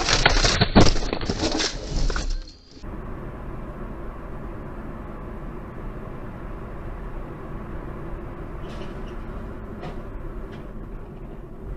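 A loud car collision, most likely with a car crossing in front, with a sharp crash about a second in amid noisy scraping; it cuts off after about two and a half seconds. Then steady engine and tyre noise inside a moving car, with a few faint clicks near the end.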